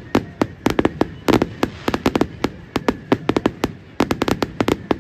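Fireworks display: a rapid, irregular barrage of sharp bangs and cracks, several a second.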